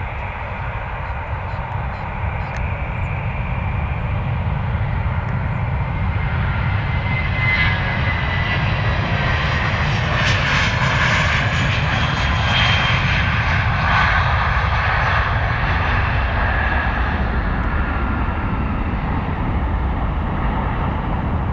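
Airbus A320 jet airliner climbing out after takeoff. Its engine noise grows louder to a peak around the middle, with a high whine over a steady low rumble, then eases slightly near the end.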